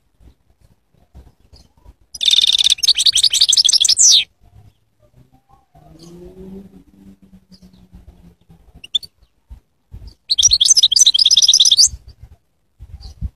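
European goldfinch singing: two bursts of rapid, high twittering song, the first about two seconds long and the second about a second and a half, several seconds apart.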